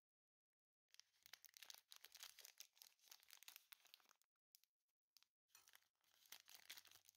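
Faint crackling and crinkling of a plastic snack wrapper being torn open and handled: one stretch of about three seconds starting about a second in, then a shorter spell of crinkling near the end.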